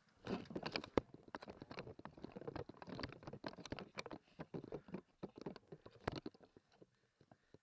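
Irregular clicks and knocks of a player on the move: footsteps and the airsoft gun jostling against its mounted camera. They thin out near the end.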